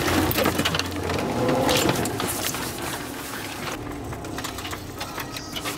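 Branches and brush scraping and snapping against an off-road vehicle as it pushes through undergrowth, over the vehicle's running engine. The crackling thins out and grows quieter after about two seconds.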